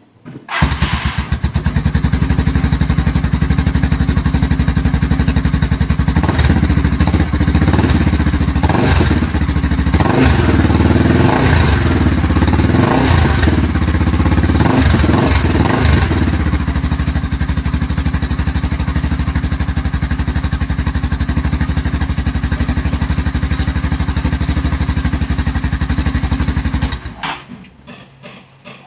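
Aprilia GPR 250 v2's single-cylinder engine through an aftermarket Akrapovic muffler: started about half a second in, idling, revved in a series of throttle blips for about ten seconds, then idling again until it is switched off near the end.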